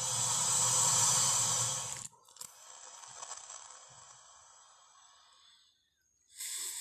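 Spinosaurus sound effect made from dragon and crocodile sounds: a loud hissing growl for about two seconds, then a long breathy hiss that fades away. Another loud call starts right at the end.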